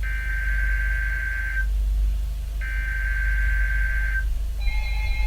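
NOAA Weather Radio's SAME digital header: two harsh, buzzy data bursts about a second apart, each lasting about a second and a half, which encode the alert about to be broadcast (here a flash flood warning). Near the end a different steady tone begins, as the alert tone follows.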